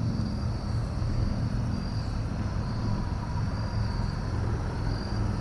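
Insects, likely crickets, trilling in short repeated pulses about once a second over a steady low outdoor rumble.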